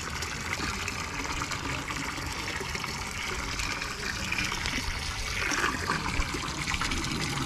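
Steady rush of running, splashing water.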